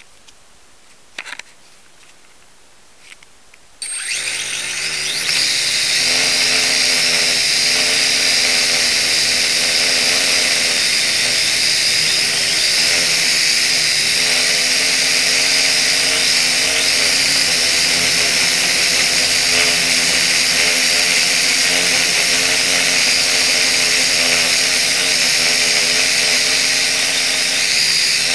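Motor and propeller of a small radio-controlled aircraft, heard from the onboard camera. After a few seconds of quiet with a couple of clicks, it starts suddenly about four seconds in and runs loud and steady, its pitch wavering slightly.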